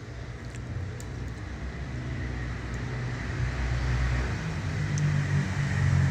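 Low engine rumble of a passing motor vehicle that grows steadily louder, with a few faint light clicks.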